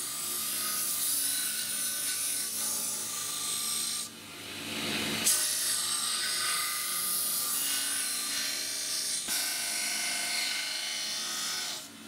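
Belt grinder's abrasive belt grinding a steel cleaver blade, a steady hissing rasp. About four seconds in the blade comes off the belt for a second and only the motor's hum is heard, then the grinding resumes until it stops near the end.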